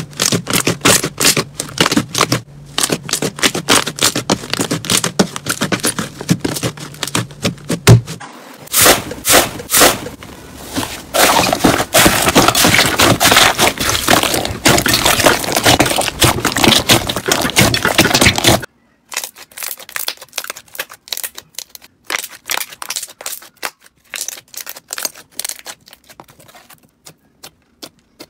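Hands squeezing and poking slime, a dense run of crackling, popping clicks as trapped air is pressed out. About two thirds of the way through it stops abruptly and goes on fainter and sparser.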